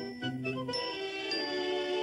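Theme music: a few quick bright, tinkling notes, then a chord held and ringing from under a second in.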